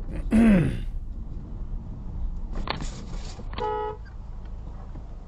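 A short car horn toot, one steady note lasting under half a second, about three and a half seconds in. Earlier, a loud vocal exclamation falls in pitch, and a brief hiss follows.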